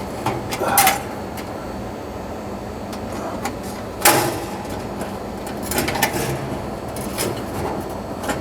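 Dryer sheet-metal panels and clips being handled and worked into place: scattered clicks, scrapes and rattles, with one sharp knock about four seconds in.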